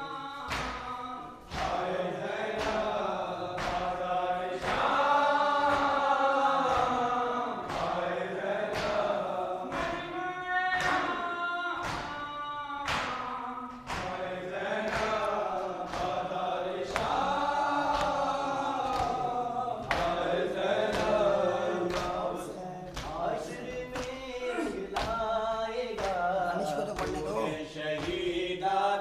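Men chanting a noha, a Shia lament, in chorus, with the steady rhythmic thumps of hands striking chests (matam) about once or twice a second.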